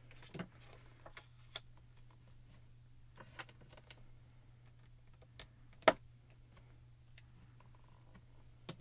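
Scattered light taps and clicks of card stock and stamping tools being handled on a stamping platform, with one sharp click a little before six seconds in as a bar magnet snaps down onto the platform's metal base.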